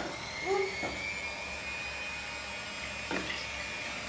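Electric hand mixer running steadily, its motor giving a high whine.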